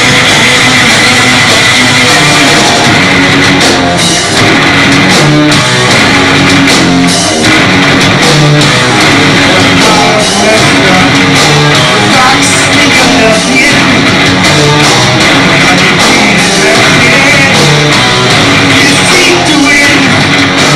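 Live doom metal band playing loud: heavily distorted electric guitar over drums, with the guitarist singing into the microphone.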